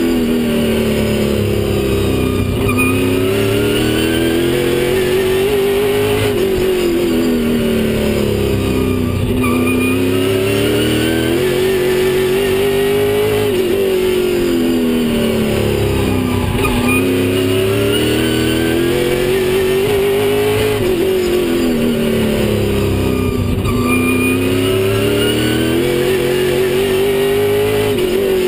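Stock car's V8 racing engine at speed on a short oval, heard from on board. The revs climb on each straight and drop into each turn, rising and falling about every three to four seconds.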